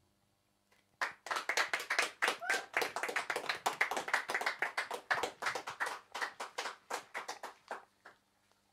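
Applause from a small group of people, each clap distinct rather than blended. It starts about a second in and dies away near the end.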